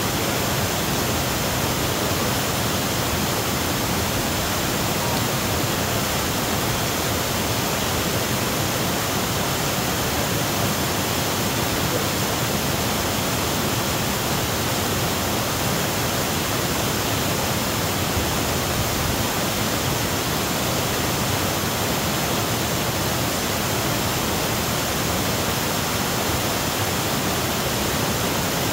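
Waterfall: white water cascading down a rocky drop over boulders, a steady rush that does not change.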